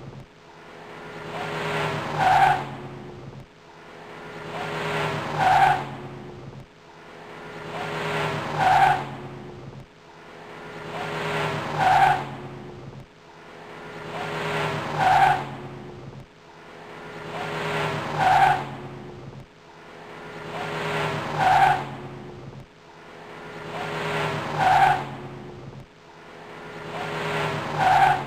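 Car engine sound effect played in a loop: the engine note builds to a sharp peak, then drops away, repeating about every three seconds, roughly nine times.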